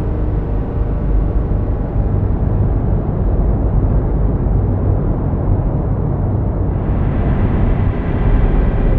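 Dark ambient drone from a cinematic sample pack: a dense, steady low rumble, like a distant engine or aircraft, that opens up a little brighter about two-thirds of the way in.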